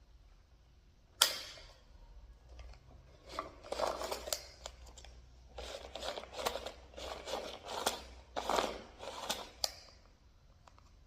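One sharp snap a little over a second in, then several seconds of irregular rustling and crinkling as a parcel's packaging is torn open and handled.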